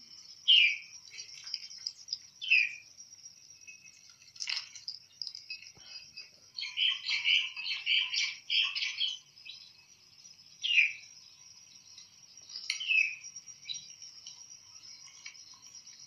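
A plum-headed parakeet calling in short, sharp chirps that fall in pitch: single calls spaced a few seconds apart, and a quick run of chirps in the middle. A steady high insect trill runs underneath.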